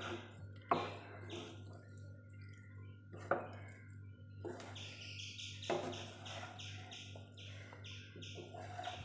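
A metal spatula stirring and scraping pasta and chicken in a nonstick pan, with three sharp clacks against the pan. A small bird chirps steadily in the background, about three chirps a second, over a low steady hum.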